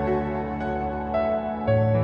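Slow, gentle instrumental theme music: held low notes under a simple melody of single notes, the bass note changing near the end.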